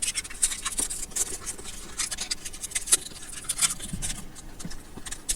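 Plastic packaging rustling and crinkling as it is pulled off a new immersion water heater, a quick irregular run of sharp crackles and scratches.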